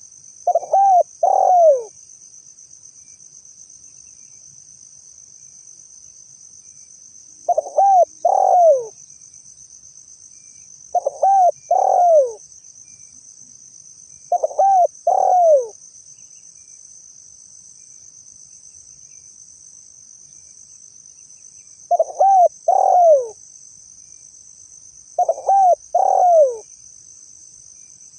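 Spotted dove cooing: six short phrases, each of closely spaced arched notes ending in a falling note, repeated every few seconds with pauses between. A steady high insect buzz runs underneath.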